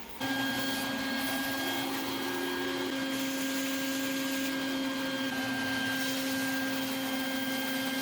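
Vacuum cleaner running steadily with a constant hum, cleaning up the debris from a CNC cut. It starts abruptly and cuts off abruptly.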